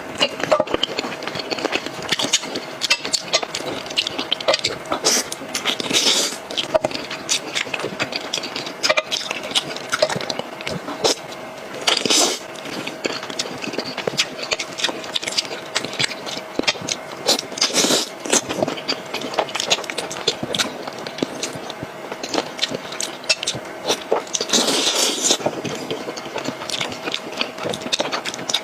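Close-miked eating sounds: continuous wet chewing and smacking full of small clicks, with louder slurps or crunches every few seconds, over a faint steady hum.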